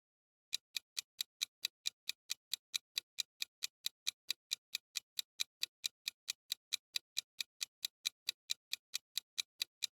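Countdown-timer ticking sound effect for a quiz question: even, clock-like ticks, about four or five a second, starting about half a second in.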